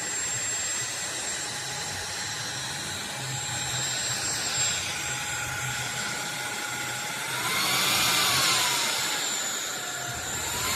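Cordless stick vacuum cleaner running with a steady high whine and a rush of air. About three-quarters of the way through, its pitch rises and falls and it gets louder for a couple of seconds.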